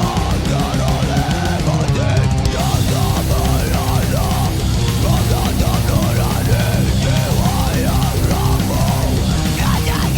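Heavy metal style rock music with drums and guitar, loud and continuous, with many bending, wavering melody notes.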